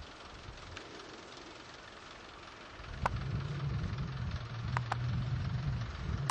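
Vehicle engine idling, a low drone that comes in and grows louder about three seconds in, with a few short high clicks above it.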